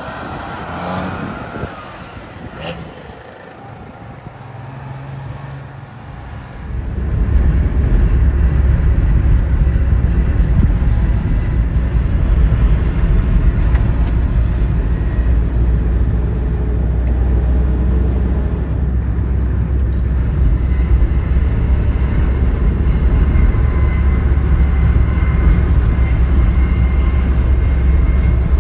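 Two-stroke turbocharged Detroit Diesel 6V92TA V6 of an FTF logging truck. It comes in loud about seven seconds in and then runs steadily with a deep rumble.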